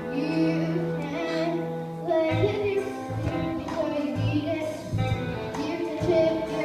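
Young voices singing a musical-theatre number with instrumental accompaniment; a held low note in the accompaniment gives way to a pulsing bass about two seconds in.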